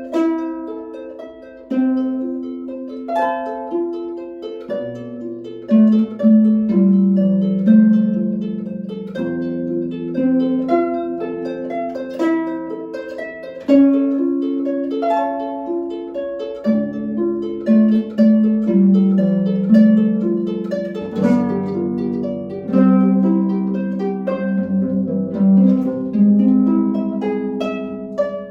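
Solo concert harp playing a flowing piece: plucked notes start crisply, ring on and overlap, with low bass notes entering about five seconds in.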